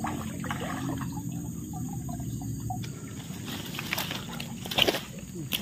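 Water splashing and trickling around a gill net full of live fish, with a few sharper splashes near the end.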